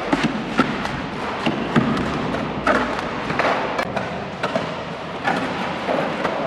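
Irregular knocks and thuds of hand repair work, over a steady background din.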